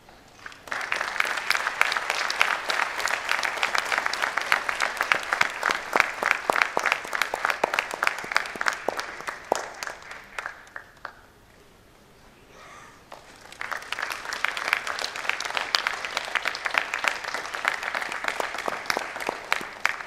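Audience applauding: a long round of clapping that dies away about eleven seconds in, then a second round that starts a couple of seconds later.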